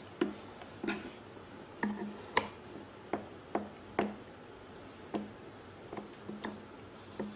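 Irregular light clicks and taps, about a dozen, roughly one or two a second: hands working a rubber fuel hose and its spring hose clamp onto the fuel selector valve port inside a small inverter generator's plastic housing.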